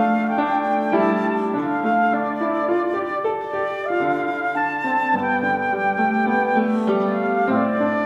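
Concert flute playing a melody, its notes changing about once or twice a second.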